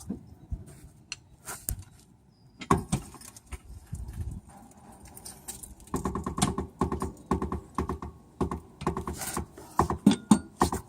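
Metal clicks and clanks from hand tools working on a car shock absorber, scattered at first, then a quick regular run of clicks, about three or four a second, through the second half.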